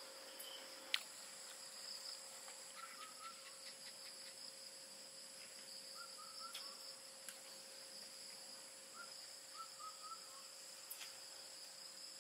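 Night chorus of crickets and other insects, a steady high-pitched trilling, with short chirps in groups of two or three repeating every second or two. A single sharp click about a second in.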